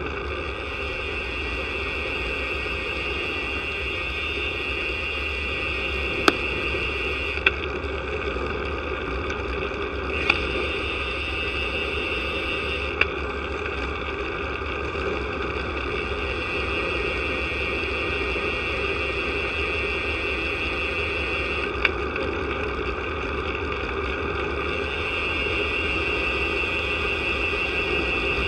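Steady rushing wind and tyre-on-tarmac road noise picked up by a camera mounted on a moving road bicycle, broken by about five sharp clicks.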